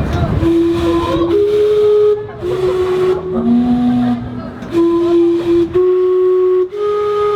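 Gastown steam clock's steam whistles sounding its chime, a slow tune of about eight held notes, each lasting roughly a second, with a steam hiss behind them.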